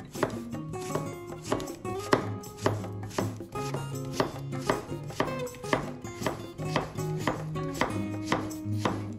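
Hollow-edge kitchen knife chopping strips of zucchini into cubes on a wooden cutting board, in repeated strokes about two to three a second, each a short knock of the blade on the board.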